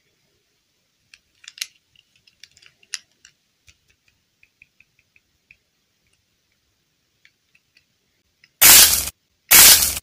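Faint small clicks and taps of fingers handling a plastic doll and soft modelling clay, including a short run of light ticks. Near the end come two loud half-second bursts of hiss-like noise about a second apart.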